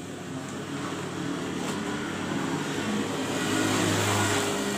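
A motor vehicle's engine running by, growing louder and loudest near the end.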